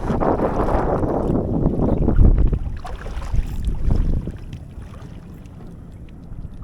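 Wind buffeting an action camera's microphone: a heavy, low rumbling rush in gusts that eases after about four seconds.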